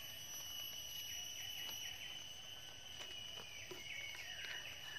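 Night-time forest insects trilling steadily in two constant high-pitched tones, with a few faint short chirps in the second half.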